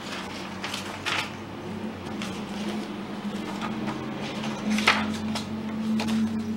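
Paper and cardstock pages of a handmade journal being turned by hand: a series of short rustles and page flaps, the loudest about five seconds in.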